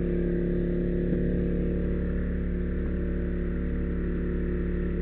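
A steady, even hum with a low pitch and a stack of overtones, unchanging throughout.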